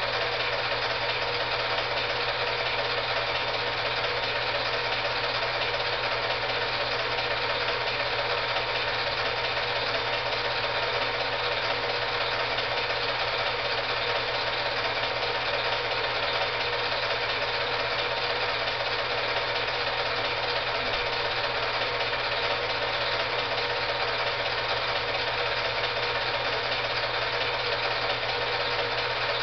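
Film projector running with a steady mechanical whir and clatter that does not change.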